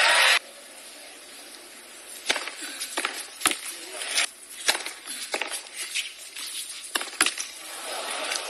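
A loud burst of crowd applause cut off abruptly just after the start. Then a tennis ball is bounced and struck by rackets on a hard court: a few separate sharp pops of the serve and rally over a quiet crowd, and the crowd starts applauding again near the end.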